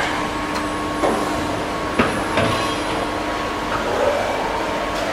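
Steady machinery hum of a metal-pressing shop, broken by a few sharp clanks of steel about a second apart.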